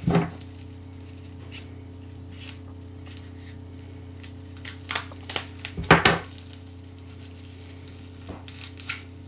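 Scattered light wooden knocks and clicks of a wooden fingerboard deck being handled and tapped against a hard surface. The loudest cluster comes about five to six seconds in, over a steady low electrical hum.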